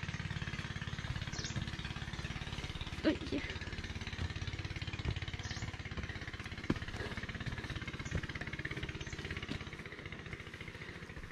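A small engine running steadily with a fast, even low throb. A few light knocks and a short vocal grunt sound over it, about three seconds in.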